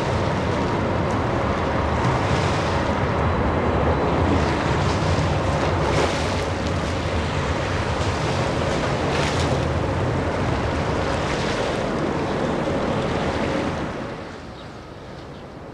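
Jet engine noise from a departing-view Airbus A320ceo on final approach with gear down, a steady rush with a faint whine underneath. It drops off sharply near the end.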